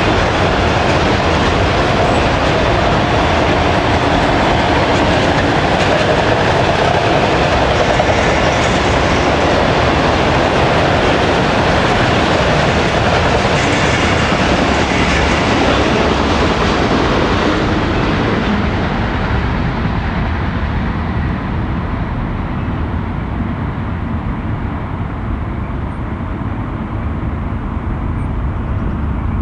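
Freight train of autorack cars rolling past, steel wheels running on the rails. The last cars go by, and over the second half the sound fades: the high end drops away first, leaving a lower rumble as the train moves off.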